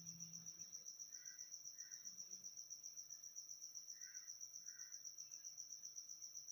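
Faint, steady high-pitched cricket trill, pulsing about eight times a second, with four soft brief chirps in the middle; otherwise near silence.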